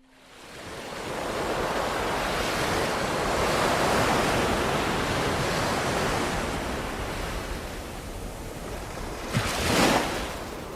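Ocean waves washing in, fading up over the first second and then steady, with a louder wave breaking near the end.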